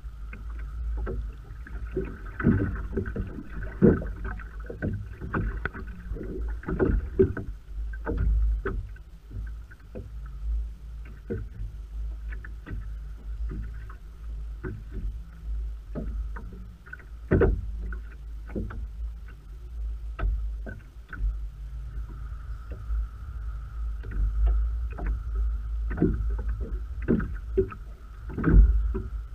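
Water slapping and lapping against the hull of a small open boat on choppy water, with many irregular knocks over a steady low rumble. A faint steady whine sits behind it, weakening in the middle and coming back stronger later on.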